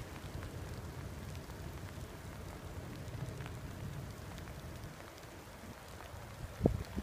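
Steady outdoor noise: a low rumble of wind on the microphone under a light hiss. A single thump comes near the end.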